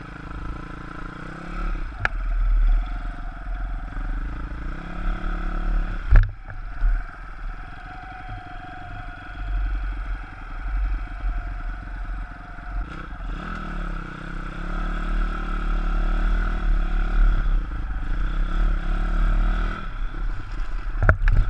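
160 cc pit bike's single-cylinder four-stroke engine running under the rider, revving up and easing off as it is ridden over rough ground, with a sharp knock about six seconds in.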